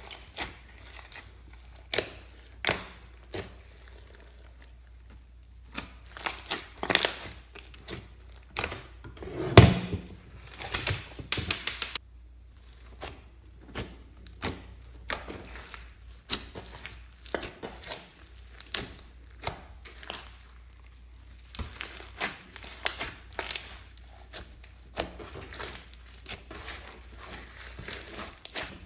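Hands squishing and pressing slime, making irregular sharp clicks and crackles, with one louder knock about ten seconds in.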